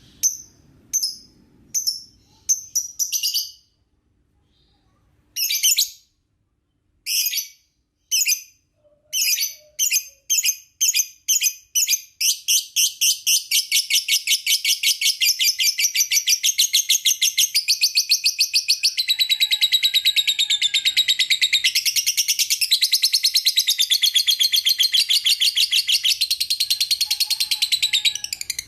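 Lovebird calling: sharp high chirps, spaced apart at first and coming faster, run together about twelve seconds in into a long, rapid, unbroken chattering trill, the excited long call that lovebird keepers call 'ngekek'.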